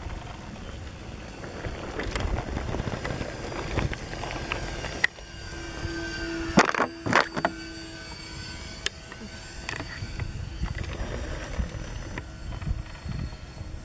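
Distant drone of a radio-controlled Twin Otter scale model's two motors in flight, over wind rumble on the microphone. A couple of sharp knocks come about halfway through.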